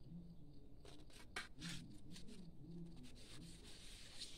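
Sheets of paper being handled: a few short crisp crackles about a second in, then a softer continuous rustle of paper sliding and rubbing.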